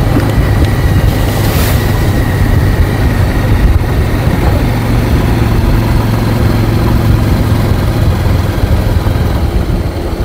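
Motorcycle running steadily on the move, a constant low engine hum under loud road and air noise.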